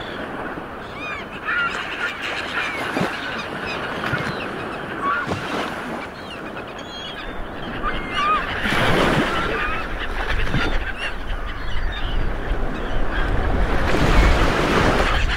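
Many birds calling in short overlapping calls over a steady rush of wind and surf. The wind and surf swell louder about eight seconds in and again near the end.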